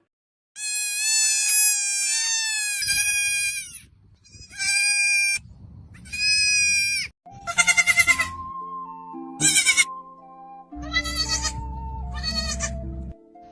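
Goat kids bleating: one long, high, wavering bleat, then two shorter bleats, then several quavering bleats over background music.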